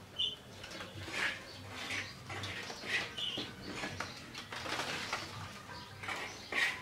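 Irregular wet scraping and slapping as slippery stinging catfish are handled and pushed about on a woven bamboo mat, a stroke every second or so.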